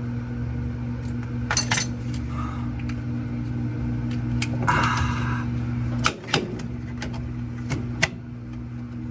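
Tools and metal parts clinking and clicking while a washing machine's drive assembly is handled and reassembled, a few sharp knocks spread through, with a brief scrape near the middle, over a steady low hum.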